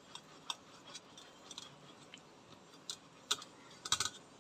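Irregular soft clicks and ticks as a hand presses ripe mango flesh against a stainless-steel mesh strainer sitting in a steel pot, forcing the pulp through; a sharper cluster of clicks comes near the end.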